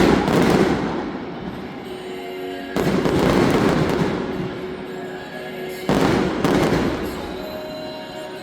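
Aerial fireworks bursting: three loud booms about three seconds apart, each fading out over a couple of seconds.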